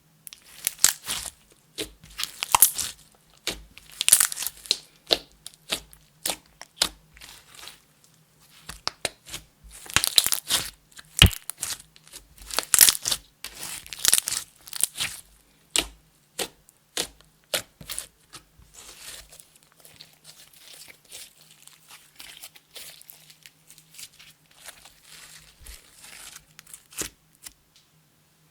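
Clear slime with makeup and glitter in it being squished and kneaded by hand, giving sticky crackles and sharp pops. The pops are loud and dense at first and turn softer and sparser about two-thirds of the way through.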